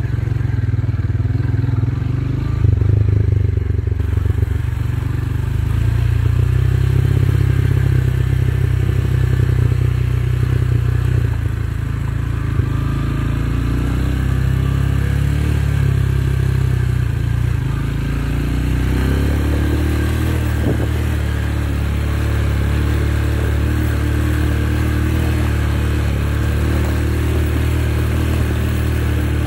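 Motorcycle engine running steadily under way on a rough dirt road. The engine note changes about two-thirds of the way through.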